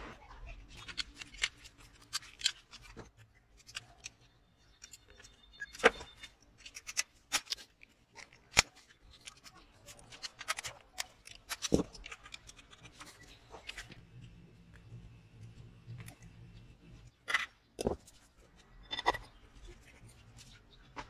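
Irregular metal clicks, taps and clinks of hand tools and small parts being handled during reassembly of a Briggs & Stratton lawn mower engine, as bolts are driven on the throttle bracket and the flywheel is fitted.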